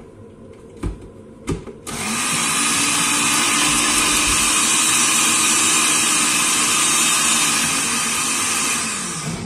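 Countertop jug blender running for about seven seconds, blending fried bread and garlic with a little warm water into a paste: the motor starts abruptly, holds a steady whirr, then winds down near the end. Two short knocks come shortly before it starts.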